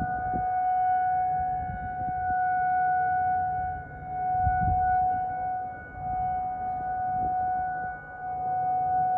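Outdoor civil-defense warning siren sounding a steady single-pitch tone for its monthly test, the tone swelling and fading in loudness about every two seconds.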